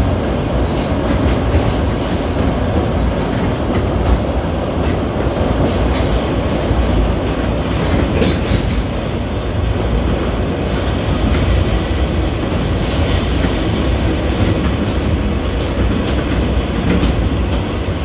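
Running noise of a Kurobe Gorge Railway open-sided Ha-type passenger car on 762 mm narrow-gauge track, heard from aboard: a steady rumble of wheels on rail with scattered clacks.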